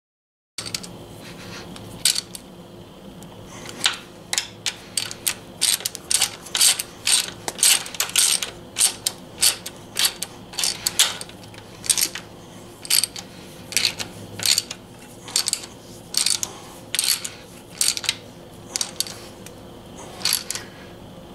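Hand socket ratchet clicking in quick back-and-forth strokes as it turns a bolt on a clutch slave cylinder. Bursts of clicks come about once or twice a second, starting about two seconds in.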